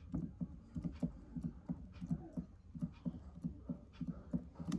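Refillable travel perfume atomizer being pumped down onto a perfume bottle's spray nozzle to fill it: a steady run of soft clicking pumps, about four a second.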